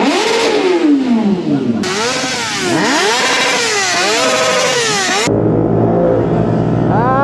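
Motorcycle engines revving over and over, their pitch rising and falling, several at once. The sound changes abruptly twice, and one sharp rising rev comes near the end.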